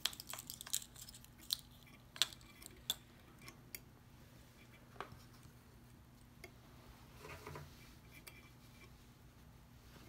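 Faint clicks and clinks of small metal parts and tools being handled while a vintage Airguide marine speedometer is worked on. The clicks come quickly in the first few seconds, then only now and then, with a short scraping rustle near the end.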